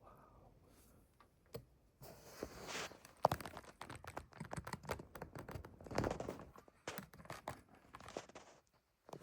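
Irregular rustling and crackling with many sharp clicks, starting about two seconds in and going on in uneven surges.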